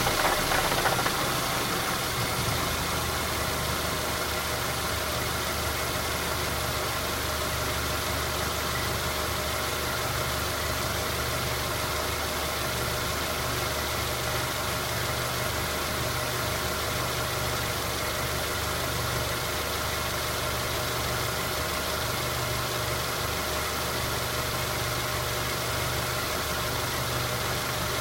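Mazda 3 with an automatic transmission running steadily: an even, low drone, a little louder in the first second or so. The car has a knock in its automatic transmission that comes on when coasting and goes away when the throttle is pressed.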